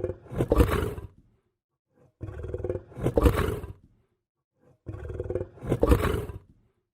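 Lion growling: the same deep growl repeated three times, about every two and a half seconds, each lasting under two seconds with silence between.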